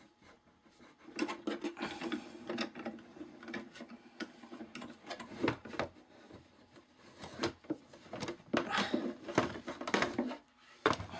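Irregular clicks, knocks and rubbing of a pink plastic paper-crafting embossing machine being worked and handled against the table beside the camera, with a few harder knocks in the second half.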